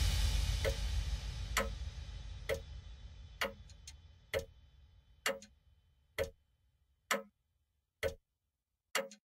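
The last of an electronic track's sound fades out over the first few seconds, leaving an even clock-like tick, a bit faster than once a second, that carries on alone.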